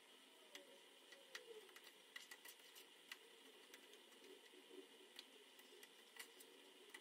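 Near silence with faint, irregular small pops and ticks, a few a second: a cream-of-mushroom sauce with chicken breasts simmering.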